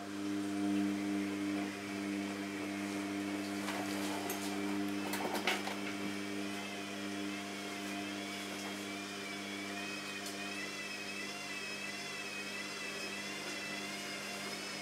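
Small electric motor of a rotating display stand humming steadily, starting right at the start. A few clicks and a rattle come between about four and six seconds in, and from about six seconds on a high whine wavers up and down.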